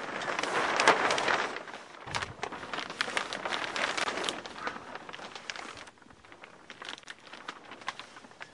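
Clear greenhouse plastic sheeting rustling and crinkling as someone moves about underneath it, loudest in the first second or two and fading after about six seconds.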